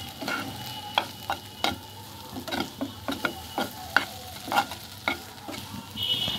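Metal spatula scraping and knocking against a frying pan as stir-fried noodles are tossed and stirred to work the spice mix through, in irregular strokes about every half second, over a light sizzle of frying.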